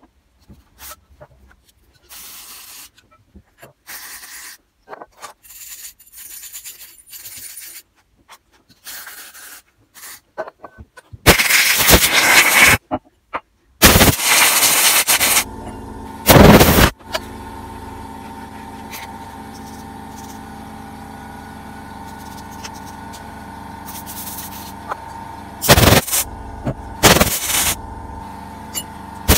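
Sped-up, chopped-up handling and scraping of small carburettor parts, then several loud hissing blasts of compressed air blowing through the carburettor's jets and parts. A steady mechanical hum runs under it from about halfway through.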